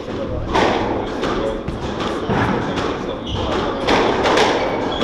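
Squash ball thuds and taps off walls and floor in a squash hall, a run of sharp knocks every second or so, with footsteps on the wooden court floor.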